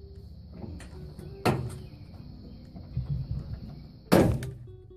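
Hard plastic clacks and knocks of a Chevy Silverado taillight assembly being pulled rearward, its locating pins popping out of their retainers in the body. A sharp knock comes about a second and a half in, and the loudest one about four seconds in as the lamp comes loose.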